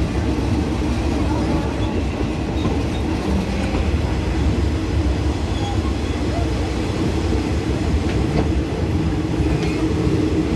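Passenger train running on the rails as it pulls into the station, heard from aboard: a steady low rumble with a few faint clacks.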